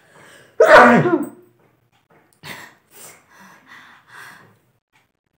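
A person sneezing once, loudly, the voiced sneeze falling in pitch; the sneeze was brought on by tickling the nose with a long grass stem. Four short, quieter breaths follow.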